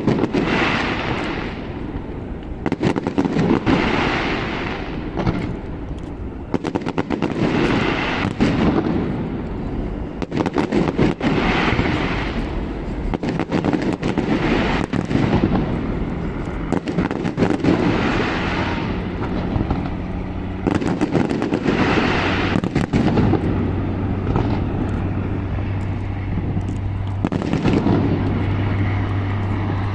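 Large fireworks display: shells bursting in rapid succession, with sharp bangs and waves of crackle every few seconds. A low steady hum joins in the second half.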